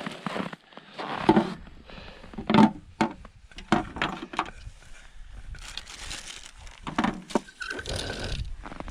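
Irregular crunching and crackling handling noises, with several sharp knocks and scrapes scattered through and no steady rhythm.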